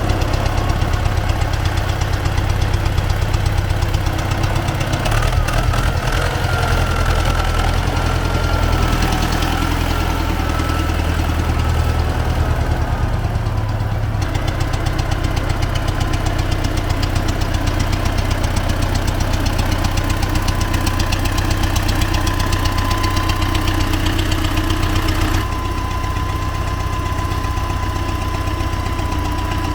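T-40AM tractor's diesel engine running steadily, its sound shifting abruptly about halfway through and again near the end.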